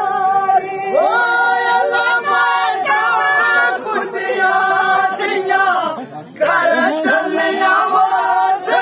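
Men's voices singing a Dogri folk song together, several voices on held, sustained notes, with a short break about six seconds in.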